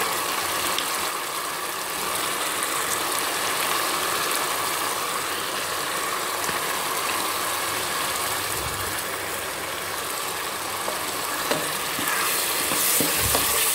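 Tomato and ginger-garlic masala frying in oil in a pan, a steady sizzle.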